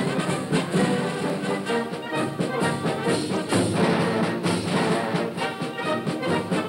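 Orchestral background music with brass instruments and a regular beat.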